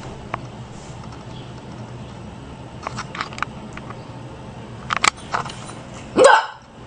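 A woman's single sharp hiccup near the end, after a few faint clicks over steady room tone.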